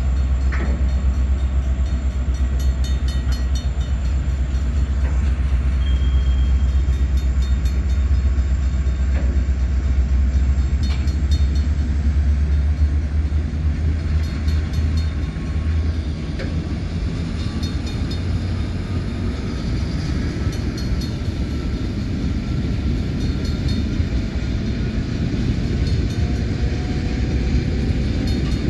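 Freight train of empty ore cars rolling past, a steady rumble with a few faint clicks. The deepest part of the rumble eases a little past the halfway point.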